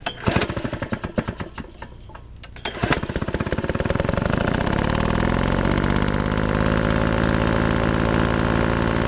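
Small engine firing unevenly at first, then catching just before three seconds in. It speeds up and settles into a steady fast run.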